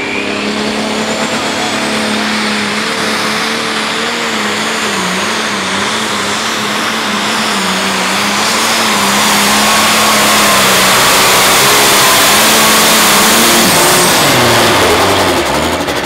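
Turbocharged diesel engine of a Farmall limited pro stock pulling tractor running flat out under load as it pulls the sled, its revs wavering. About two seconds before the end the revs fall away as the pull ends.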